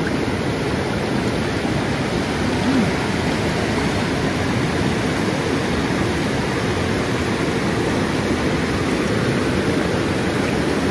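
A river's water rushing steadily, loud enough that speech has to be shouted over it.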